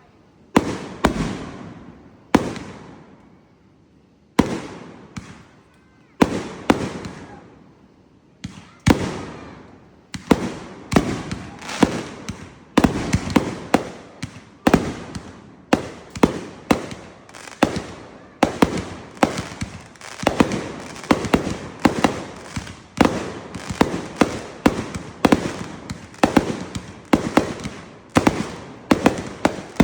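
Fireworks going off: sharp bangs, each with a fading crackling tail. For the first third they come a second or two apart, then they speed up into a rapid barrage of several bangs a second.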